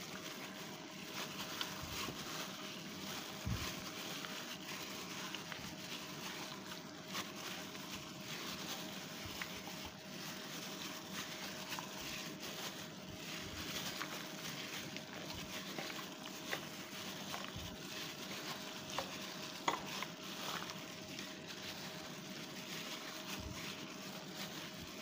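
A hand in a plastic glove mixing raw chicken pieces into a flour-and-spice coating in a bowl: continuous wet squishing and crinkling, with many small clicks.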